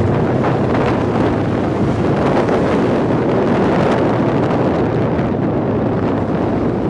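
Steady wind noise buffeting the microphone of a moving motorcycle, with the bike's engine and tyre noise running under it.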